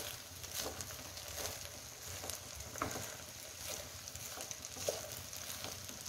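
Fried rice being stirred in a pan on high flame: a soft sizzle under a spatula scraping and knocking against the pan about once a second.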